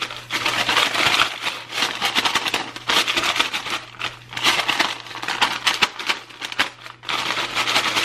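Paper microwave pork-rind bag being unfolded and shaken, crinkling in several bursts.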